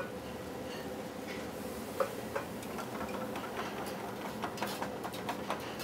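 Turkey pieces and a freshly added molasses-soy-bourbon sauce sizzling in a hot skillet over a gas burner, with scattered crackles and pops over a steady hiss, livelier in the second half, and one sharper click about two seconds in.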